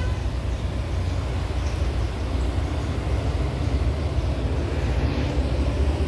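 Steady deep rumble from a Volkswagen Golf, heaviest in the low bass, with no clear tune or beat.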